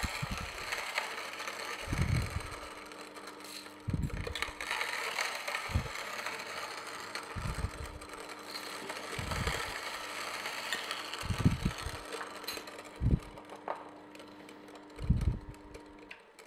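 Omega Sana EUJ-707 slow auger juicer, fitted with its blank homogenizing screen, grinding coffee beans: a steady motor hum under a gritty crunching, with a short low knock about every two seconds. The motor stops just before the end.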